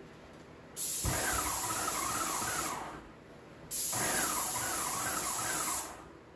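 Graco Magnum X5 airless paint sprayer spraying paint in two bursts of about two seconds each, a loud hiss with a wavering whine in it, with a short pause between as the trigger is released.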